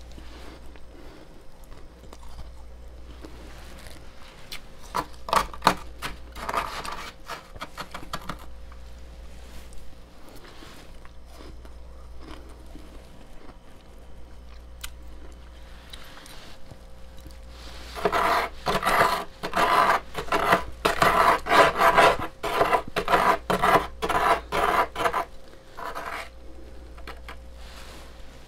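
Freezer frost being scraped and scooped with a metal spoon. There are a few rasping scrapes several seconds in, then a long run of rapid, crunchy scrapes in the second half.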